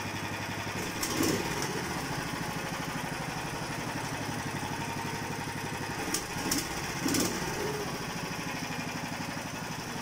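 Zongshen engine of a Pomor motorized snow tow-sled running steadily and evenly, without misfiring, on fresh NGK spark plugs. It gets briefly louder about a second in and again around six to seven seconds in.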